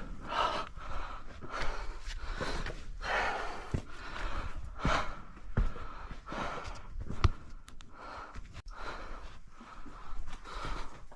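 A person breathing hard and irregularly while climbing up rock, about a breath every second or so, with a few short knocks from hands or gear against the rock.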